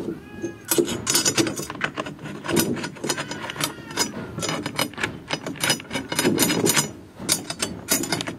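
Metal tension rods being screwed by hand into the lugs of a tom drum to seat a new top head, giving a dense run of small metal clicks and rattles.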